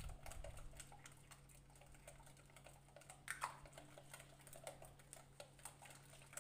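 Faint, irregular light clicking of a silicone balloon whisk tapping and scraping against a glass bowl while beating a runny egg-yolk, sugar, milk and oil mixture for a genoise sponge.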